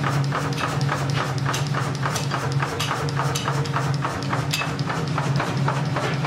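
A 75 kg mechanical power hammer forging a red-hot axe head, striking in a steady rapid rhythm of about five blows a second over the continuous hum of its drive.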